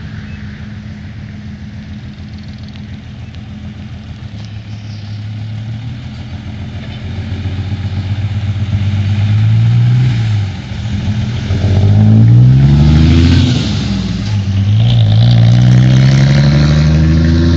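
Isuzu dump truck's diesel engine pulling away and accelerating through the gears: the engine note rises three times, dropping at each of two gear changes, and grows loud as the truck passes close by.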